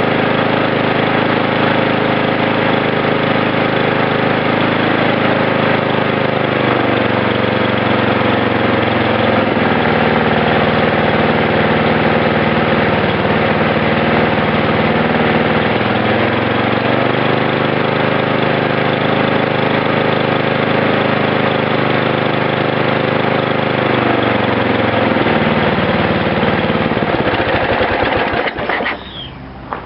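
8 hp Briggs & Stratton single-cylinder engine on a walk-behind mower running, its speed dropping and picking back up several times, then shut off near the end.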